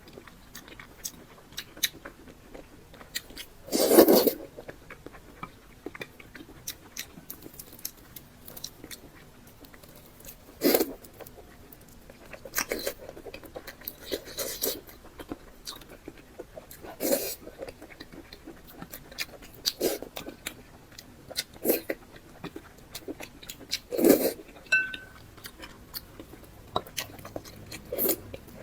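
Close-up eating sounds: wet chewing and mouth smacking on soft, sticky red-braised beef tendon, many small irregular clicks with a louder bite or chew burst every six or seven seconds.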